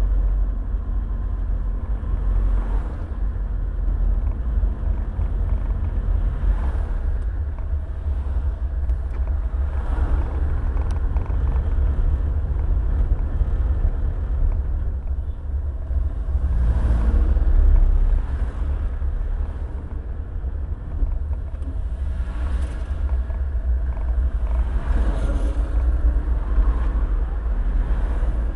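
Road noise from inside a moving car: a steady low rumble of engine and tyres, with a few brief louder swells of noise every few seconds.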